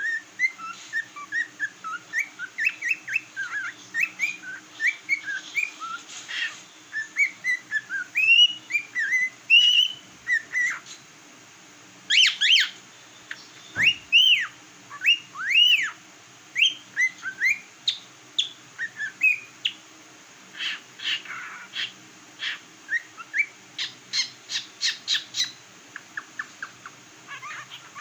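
Cockatiel whistling a long run of short notes that glide up and down, with bursts of quick, clipped chirps in the later part.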